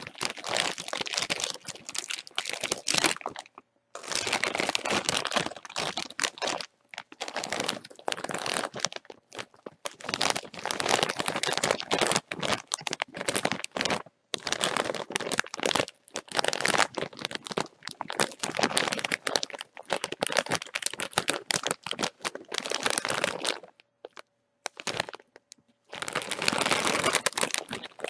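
Bag of chips being crinkled and crumpled by hand: dense runs of sharp crackling, broken by brief pauses, the longest about two seconds near the end.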